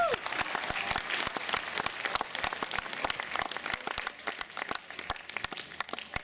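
Audience applauding, a dense patter of clapping that thins out and grows quieter near the end.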